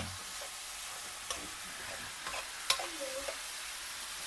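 Beef mince sizzling as it fries in a kadai, being stirred with a metal spoon that scrapes and clinks against the pan. The loudest clink comes a little past the middle. The mince is at the stage of frying off its own moisture.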